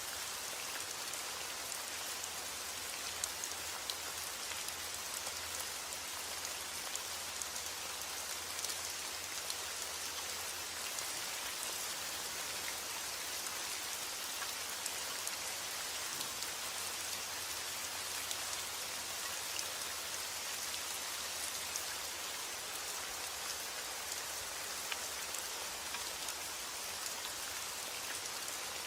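Steady rain falling: an even hiss with scattered drop ticks, holding the same level throughout.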